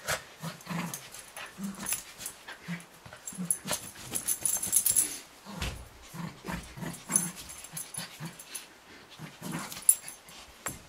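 Cavalier King Charles Spaniel puppy tugging at a sock on a person's foot, giving many short low play growls amid scuffling and rustling.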